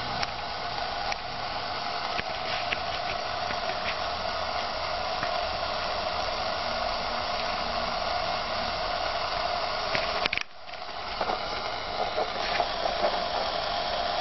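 Homemade regenerative VHF-AM airband receiver hissing steadily from its speaker, with no station coming through. The hiss drops away for a moment about ten seconds in.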